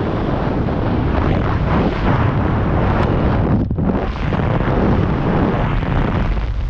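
Loud wind buffeting over a skydiver's helmet-camera microphone as the parachute opens, with a brief lull a little under four seconds in.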